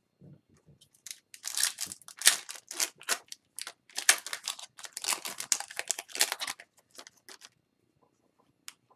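Foil wrapper of an Upper Deck hockey card pack being torn open and crinkled by hand: a quick run of crackling rips starting about a second in and lasting some five seconds, then a few faint rustles and ticks.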